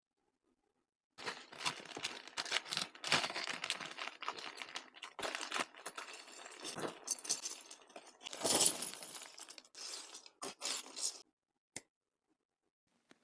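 Unboxing a small-brick building set: packaging crinkling and tearing, with small plastic pieces clinking and rattling in irregular bursts for about ten seconds, ending with a single click.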